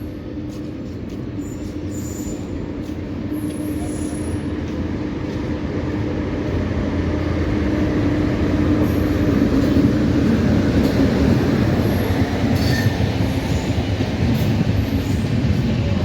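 A train approaching, its running noise growing steadily louder for about nine seconds and then holding at full loudness.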